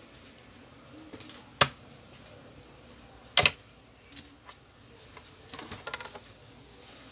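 Plastic retaining clips of a Samsung Galaxy Tab A tablet's back cover snapping loose as the cover is pried off: two sharp snaps about two seconds apart, then a few smaller clicks and a short rattle of clicks near the end as the cover comes free.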